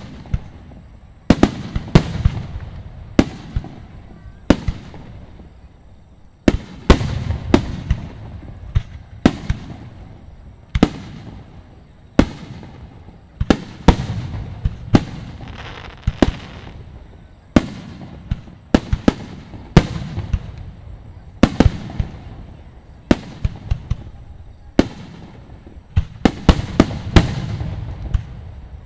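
Aerial fireworks shells bursting in a steady barrage: sharp bangs about once a second, sometimes two or three in quick succession, each followed by a low echoing rumble.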